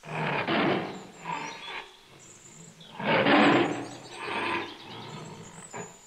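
Lion roaring: two loud, rough roars about three seconds apart, each followed by a softer one.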